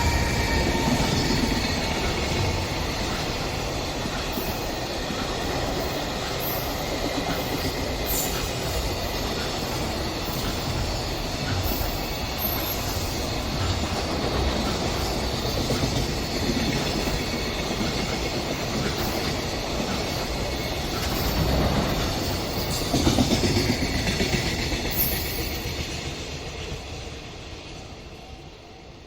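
A train passing close by on the Sanyo Main Line: a long, steady run of wheels on rail, loud throughout, that fades away over the last few seconds as it moves off.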